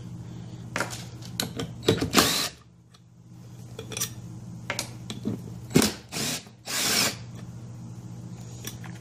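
Cordless drill/driver with a 7/16 socket spinning out the bolts that hold a loudspeaker's magnet, in several short bursts; the longest comes about two seconds in and a cluster follows near the end, over a steady low hum.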